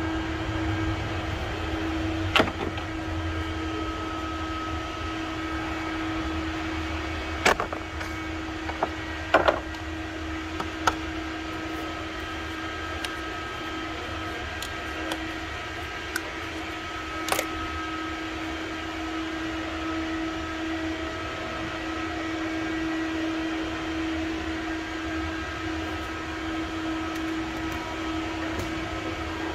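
A steady machine hum, one even tone over a low rumble, with a few short clicks and knocks scattered through it.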